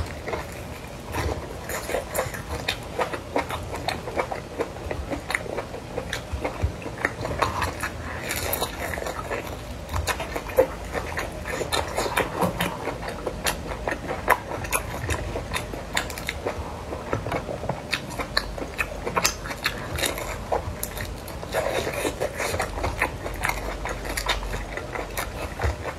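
A person biting and chewing crispy deep-fried pork intestine: a continuous run of many quick crunching crackles, with pieces torn off by hand between bites.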